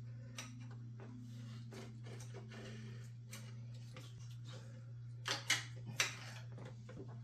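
Small clicks and light knocks from hands fitting parts and a screw into a desktop computer case, with two louder clattering knocks about five and six seconds in, over a steady low hum.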